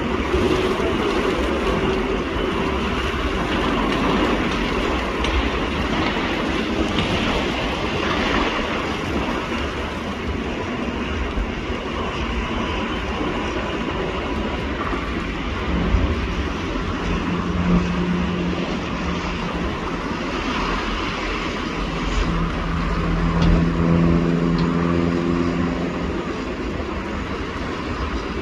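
A rail vehicle running along the track with a steady rumble and rattle of wheels on rail. An engine hum joins in about halfway through.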